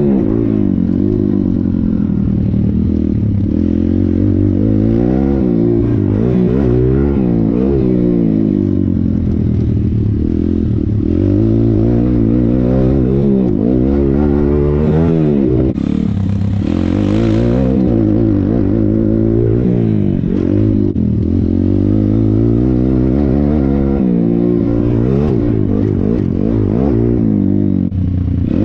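Thumpstar pit bike's single-cylinder four-stroke engine being ridden hard, revving up and easing off again and again, its pitch rising and falling every second or two, with a short let-off about halfway through.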